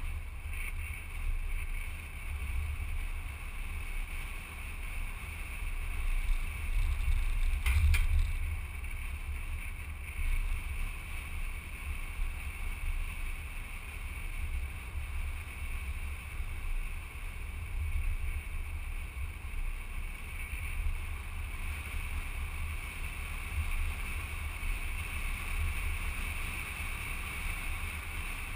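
Wind rushing over a camera mounted outside a moving vehicle, with a steady low rumble of wind buffeting and road noise. A brief knock about eight seconds in.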